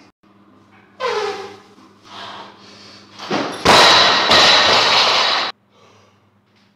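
A barbell loaded with rubber bumper plates dropped from overhead onto a lifting platform: a heavy crash, then about two seconds of loud clattering and ringing as it bounces, which stops abruptly. Before it, about a second in, the lifter lets out a short groan that falls in pitch.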